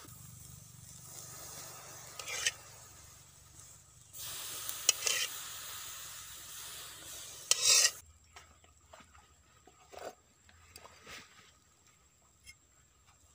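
Catfish sizzling on a wire grill rack over charcoal, with a few louder scrapes and clinks of metal tongs against the rack. After about eight seconds this gives way to faint taps and scrapes of a cleaver on a wooden chopping board.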